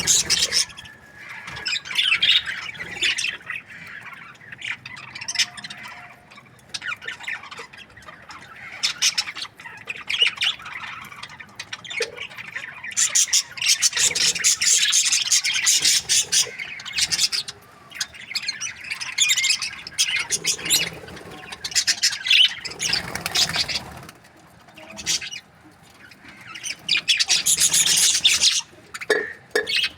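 Budgerigars chirping and squawking in rapid, high-pitched chatter that comes in busy bouts with quieter gaps between.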